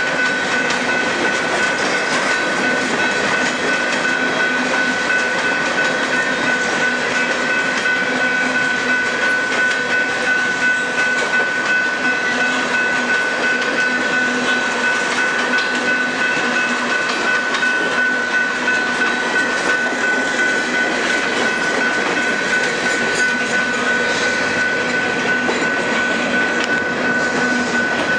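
Freight train cars, tank cars and covered hoppers, rolling past on steel wheels with steady wheel-on-rail noise and some clickety-clack. A steady high-pitched tone runs through the whole pass.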